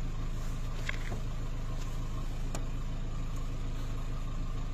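Vehicle engine idling steadily, with two faint clicks, about a second in and about halfway through, as the rear number plate is being unscrewed.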